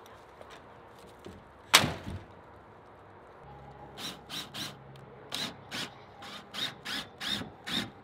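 One sharp thunk about two seconds in, then a cordless drill boring a pilot hole into wooden siding: a low steady motor hum with a run of short sharp bursts, about three a second, as the bit bites into the wood.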